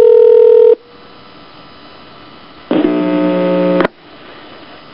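Telephone line audio: a steady dial tone that cuts off under a second in, then a low line hiss and hum, broken about three seconds in by a harsher, buzzing tone lasting about a second.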